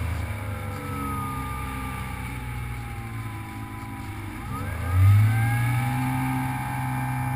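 RC plane's electric motor and propeller whining, heard from on board: the pitch sinks slowly as the throttle is eased back, then about four and a half seconds in the throttle is opened and the whine sweeps sharply up, loudest just after, and holds steady at the higher pitch.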